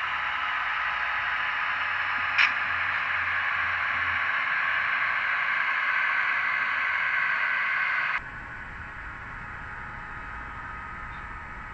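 HO-scale model train running along the track: a steady hiss from the wheels and motors, with a single click about two and a half seconds in. About eight seconds in it drops suddenly to a quieter, duller hiss.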